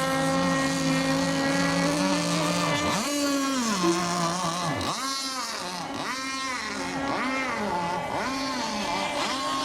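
Engines of several radio-controlled racing boats running hard. They give a steady drone at first, then from about three seconds in overlapping whines that rise and fall in pitch again and again.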